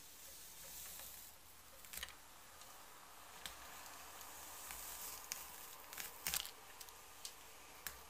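A hairbrush drawn slowly through long straight hair: soft bristle swishing that swells and fades with each stroke. A few light clicks and taps break in, the loudest about three quarters of the way through.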